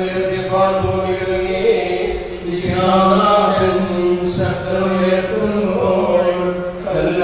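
Liturgical chanting: a voice intoning a prayer in long, held notes that move step by step, over a steady low tone.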